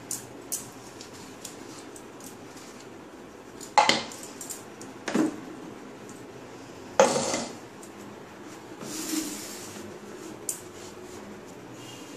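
Stainless-steel mixer-grinder jar and a spoon clattering and scraping as thick ground leaf paste is emptied into a bowl. There are sharp knocks about four, five and seven seconds in, then a longer scrape a little after eight seconds.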